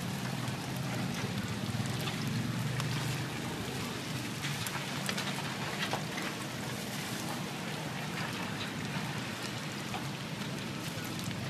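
Chive rice cakes sizzling and crackling in hot oil in a wide frying pan, with many small pops over a steady hiss. A low rumble runs underneath.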